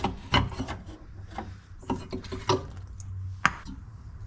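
Hand work on a car's fuel filter and its fittings: scraping and rubbing with a string of separate clicks and knocks. A sharp click about three and a half seconds in is the loudest.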